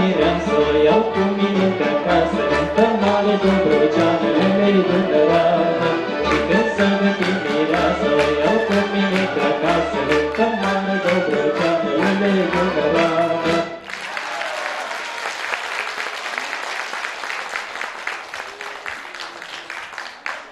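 Romanian folk orchestra with violin, accordion and double bass playing a tune that stops abruptly about 14 seconds in. Audience applause follows.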